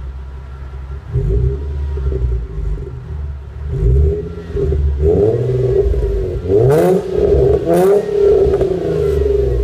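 Infiniti G35's 3.5-litre VQ35DE V6 breathing through a broken-in 3-inch catback exhaust, idling and then blipped repeatedly. The pitch rises and falls with each rev, and two sharp cracks come as the revs peak near the end.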